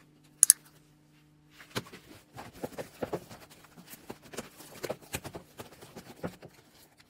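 Thick, foamy blue slime being squished and pressed by hand, giving a dense run of irregular wet crackles and pops. Two sharp clicks, the loudest sounds, come about half a second in, and a faint steady hum runs underneath.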